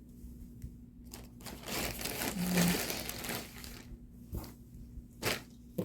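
Plastic bag crinkling and rustling as lace trims are handled, loudest about two seconds in, followed by a couple of light taps.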